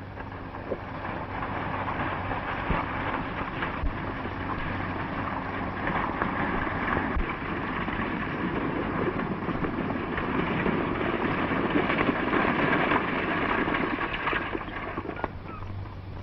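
Horse-drawn stagecoach on the move: a rushing rumble of hoofbeats and wheels that grows louder as the coach comes on and eases near the end, with a steady low hum beneath.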